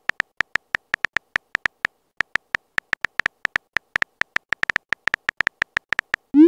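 Keyboard-tap sound effects of a texting app, one short high click for each letter typed, coming quickly and a little unevenly with a brief pause about two seconds in. Right at the end a short rising swoop sounds as the message is sent.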